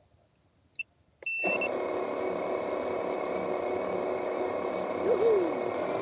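A short beep, then about a second in a camera drone's motors start up and its propellers run steadily.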